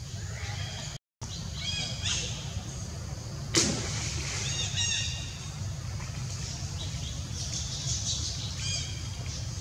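Short, high chirping animal calls, repeating in small groups, over a steady low rumble. One sharp crack about three and a half seconds in, and a brief dropout to silence about a second in.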